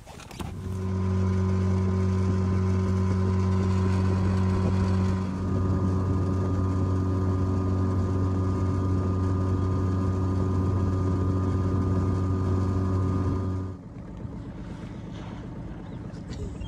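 Outboard motor on an inflatable boat running steadily at cruising speed, with a brief dip about five seconds in. It cuts out about three seconds before the end, leaving a much quieter background.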